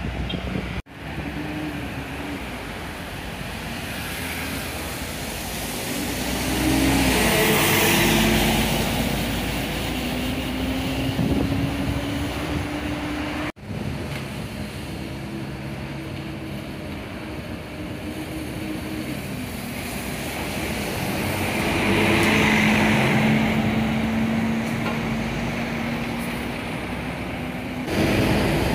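Mercedes-Benz O500UA city buses pulling away and driving past, their diesel engines running and rising in pitch as they accelerate, with road and tyre hiss swelling as each goes by. Two passes are loudest, about seven and twenty-two seconds in, over steady street traffic.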